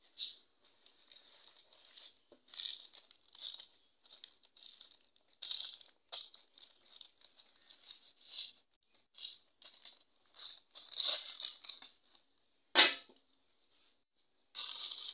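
Thin plastic wrapping crinkling and rustling in irregular bursts as it is untied and pulled off a hammer handle, with one sharp knock near the end.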